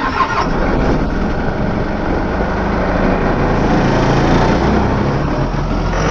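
The diesel engine of a sandblasting air compressor, just caught after sitting about three weeks unstarted, running steadily.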